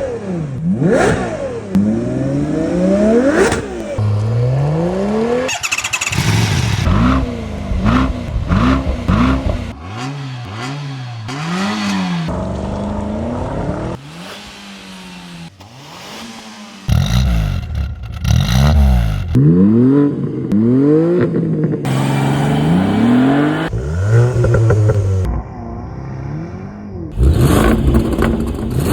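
Several different petrol car engines revving hard one after another, each blip rising and falling in pitch, with abrupt switches from one car to the next and a quieter stretch about halfway through.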